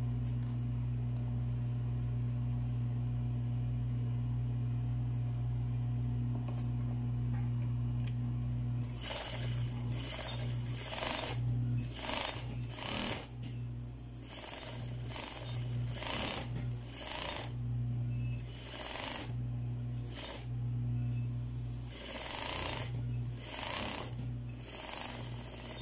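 Electric sewing machine stitching a line of shirring with elastic thread. It runs steadily at first, then from about nine seconds in goes stop-start in short bursts.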